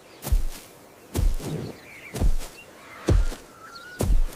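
Ostrich booming call: five deep, low booms about once a second.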